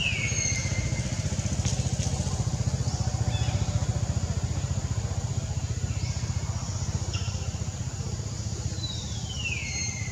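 A steady low engine rumble with a fast, even pulse throughout. A high call gliding down in pitch lasts about a second and is heard at the start and again near the end.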